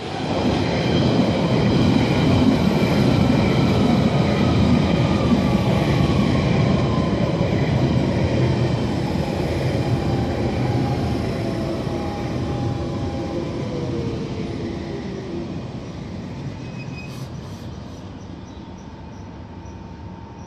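London Underground Central line 1992-stock train pulling into the platform and braking to a stop. A loud rumble of wheels on rail builds in the first seconds, with the traction motors' whine falling steadily in pitch for about fifteen seconds as it slows. The sound then eases to a quieter steady hum as the train stands.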